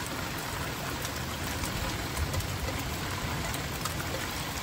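Heavy rain pouring down, a steady even hiss with a few scattered drop ticks.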